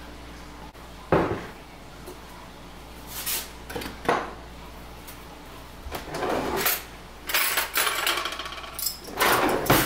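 Metal baking pan set down on a countertop with a sharp clack about a second in, followed by several more clinks and scrapes of kitchenware being handled.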